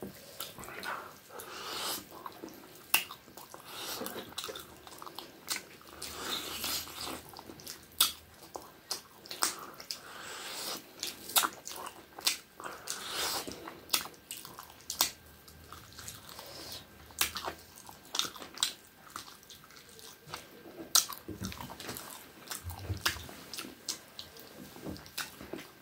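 A person eating with their fingers close to the microphone: chewing and lip smacking, with many sharp wet clicks at irregular intervals, and fingers being sucked clean.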